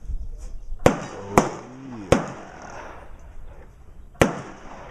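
Gunshots at a shooting range: four sharp single reports, three in quick succession in the first two seconds and a fourth about four seconds in, each with a short echoing tail.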